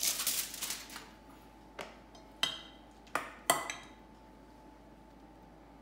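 A metal spoon clinking sharply against a stainless steel bowl a few times while scooping out a chunky sausage and apple mixture, after a brief rustle at the start.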